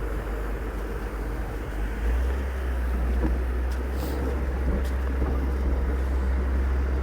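A motor vehicle's engine running, a deep steady rumble that grows louder about two seconds in.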